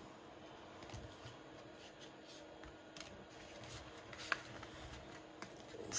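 Faint rustling and light taps of Pokémon trading cards being handled and laid down on a table, with a few soft scattered clicks and one sharper click about four seconds in.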